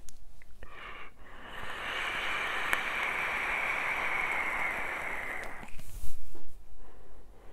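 A long drag on a vape: air hisses steadily through the atomizer with a faint whistle for about four seconds. About six seconds in comes a loud breathy exhale of vapour.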